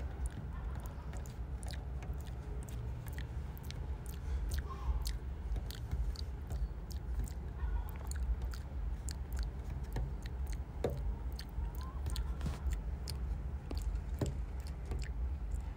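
A mother cat and her kittens eating wet food from a plastic tub: many quick, irregular wet chewing and smacking clicks, over a steady low background rumble.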